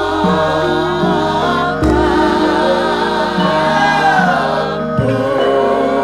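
Javanese gamelan music, with held metallophone notes under a wavering sung melody that glides downward a little past the middle. Deep low struck notes come in about two seconds in and again near the end.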